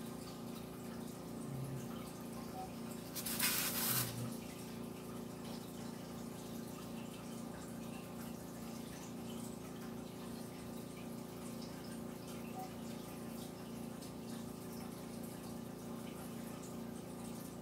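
Steady background hum made of several constant tones with a faint regular pulsing, and one short hiss about three seconds in.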